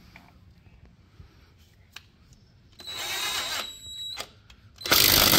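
Power tool run in two short bursts, about three seconds in and again a second or so later, the second much louder, with a few light clicks of handling before them.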